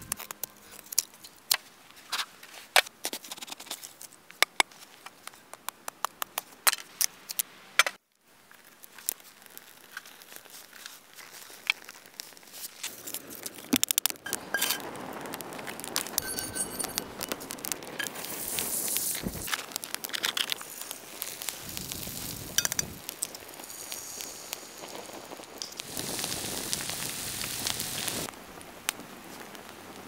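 Wood campfire crackling and popping with many sharp snaps; past the halfway mark a steadier hiss joins the crackle.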